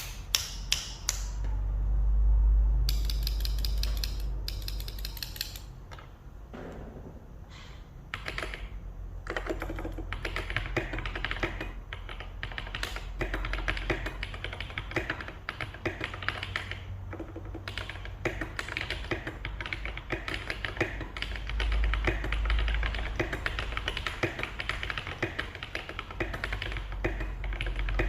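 Typing on an NJ68 mechanical keyboard with Holy Panda tactile switches and SA-profile keycaps: scattered keystrokes at first over a low rumble, then a continuous run of key clacks from about nine seconds in.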